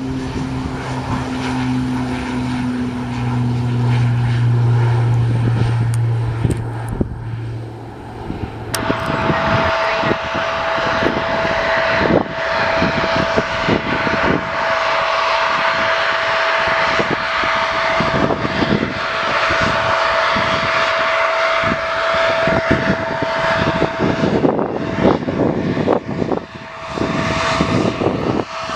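Beechcraft King Air twin turboprop running on the runway, its propellers giving a low steady drone. About nine seconds in the sound changes to a Bombardier CRJ regional jet's rear-mounted turbofans running as it rolls along the runway: a steady high whine over a loud rush.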